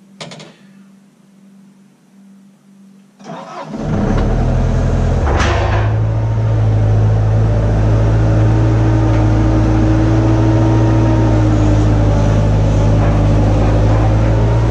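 Bobcat skid steer's engine cranking briefly and starting a few seconds in, then running loud and steady.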